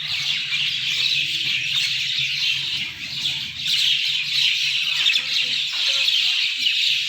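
A dawn chorus: many small birds chirping and twittering at once, a dense, unbroken tangle of short high calls.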